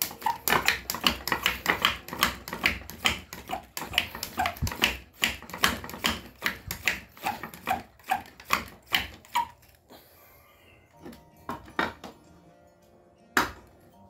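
Hand pump on a Soto Stormbreaker liquid-fuel bottle being worked in quick strokes, about three a second, with a squeak on many strokes: the bottle is being pressurised before lighting. The pumping stops about ten seconds in, followed by a few clicks and one sharp click near the end as the bottle is laid down and its valve knob is handled.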